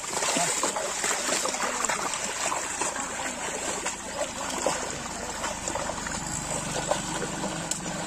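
Bullocks' legs and a wooden levelling plank churning through the water and mud of a flooded paddy field: continuous splashing and sloshing made up of many small, irregular splashes.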